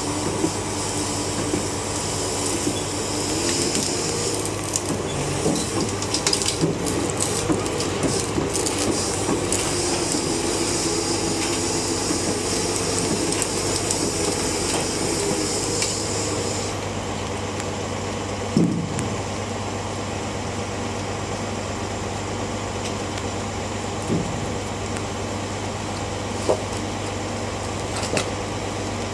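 Caterpillar 374 tracked excavator's Cat C15 diesel running steadily while its steel tracks clank and rattle as it crawls over timber planks. The track clatter stops about two-thirds of the way in, leaving the engine running, and there is one heavy thump a little after that.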